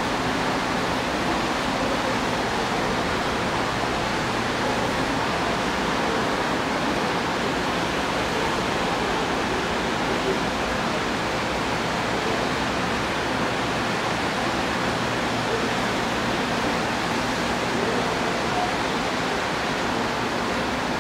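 Steady rushing noise with a faint low hum from a Korail Class 311000 electric commuter train standing at the platform, its onboard equipment running.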